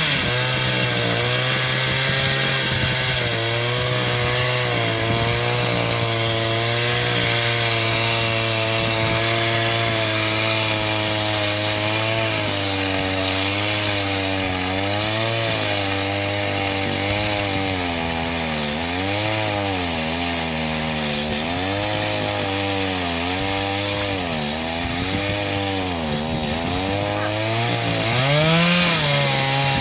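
Stihl MS 250 two-stroke chainsaw running at high revs. Its pitch holds steady for about twelve seconds, then sags and picks up again and again as the chain works through wood, with a brief rise near the end.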